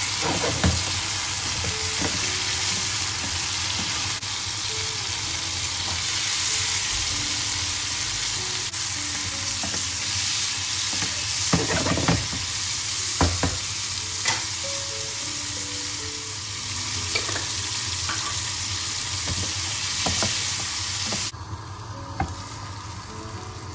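Sliced vegetables sizzling in hot oil in a frying pan while being stirred, with short scrapes and knocks of the spatula against the pan. The sizzle drops abruptly to a quieter level a couple of seconds before the end.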